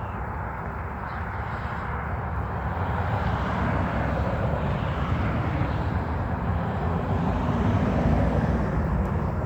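Honeybees buzzing around an opened hive: a dense, steady drone that grows a little louder in the second half.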